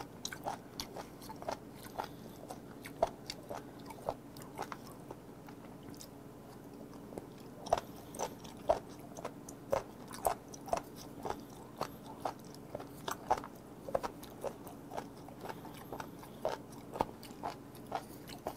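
Close-miked chewing of seafood: wet, crunchy chews at about two a second, easing off for a moment about a third of the way through.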